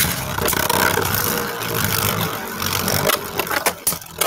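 Beyblade Burst tops spinning in a plastic stadium, a dense scraping whir with knocks that starts suddenly and dies down near the end.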